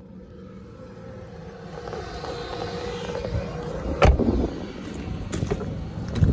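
A motor vehicle running nearby, growing steadily louder. A car door thuds shut about four seconds in, and the 2002 Cadillac Escalade's front door handle and latch clunk open at the end.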